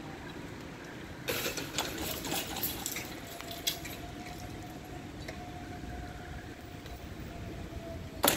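Railway level-crossing barrier booms lowering: a faint steady whine runs while the booms swing down and stops as they reach horizontal. Scattered clicks and rattles come about a second and a half in, and a sharp knock right at the end.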